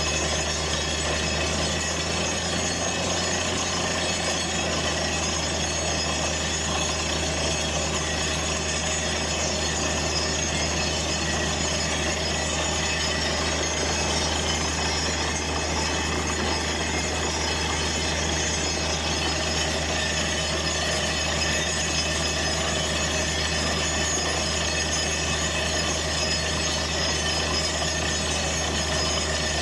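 Borehole drilling rig running steadily, a deep unchanging machine drone under the rushing hiss of water and cuttings spraying out of the hole around the drill pipe.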